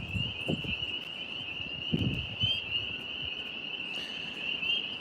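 A chorus of tree frogs calling in one steady, high-pitched, unbroken trill, with a few soft low rustles.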